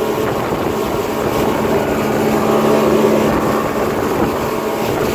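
Speedboat underway at speed: a steady engine drone over the rush of wind and water.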